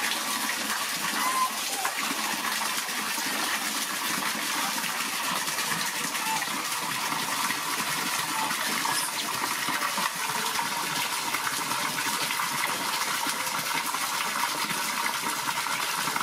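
A steady stream of water pouring from a hose and splashing into a large stainless steel basin full of water.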